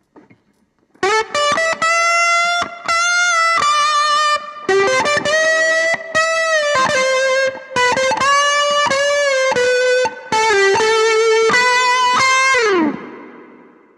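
Electric guitar through an overdriven amplifier playing a lead phrase of single notes, some held with vibrato and some bent, starting about a second in. It ends on a note that slides down in pitch and fades away.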